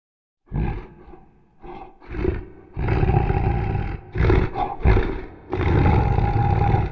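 King Kong-style giant ape roar sound effects: a series of rough roars, a few short ones at first, then two long held roars, the last cutting off abruptly.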